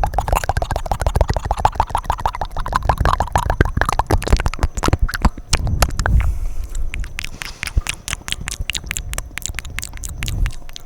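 Close-miked wet mouth sounds: a rapid run of tongue clicks and smacks with a low rumble for about six seconds, then sharper, separate clicks several times a second.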